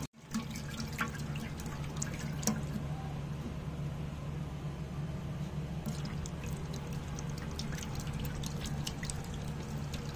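Hot oil sizzling in a pot over a wood fire, with small irregular crackles and pops as spices fry in it, over a steady low hum.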